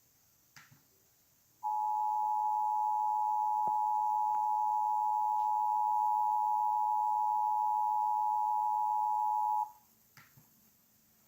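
Emergency Alert System attention signal: two steady tones sounded together as one harsh chord, starting about a second and a half in and cutting off sharply about eight seconds later. A few faint clicks come before and after it.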